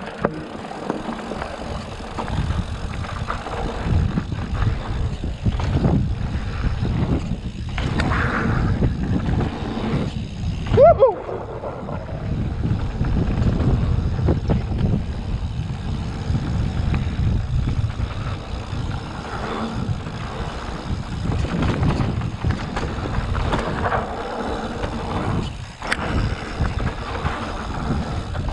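Mountain bike descending a dirt trail: a steady rough rumble of tyres over dirt and the bike rattling, with wind buffeting the microphone. A brief rising squeal comes about eleven seconds in.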